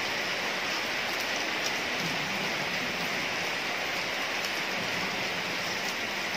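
Steady rain falling on wet paving, an even hiss that holds at the same level throughout.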